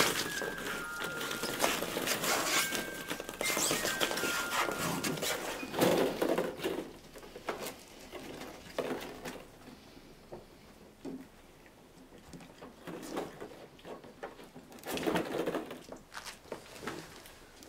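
Hollow plastic ball-pit balls clattering and rustling irregularly as puppies scramble and climb through them, busier in the first half and again near the end. A few tinkling notes of a tune sound in the first few seconds.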